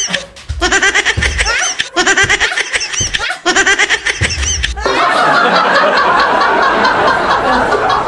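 Laughter, most likely an edited-in laugh sound effect: three near-identical bursts of laughing, then from about five seconds in a denser, continuous laughter.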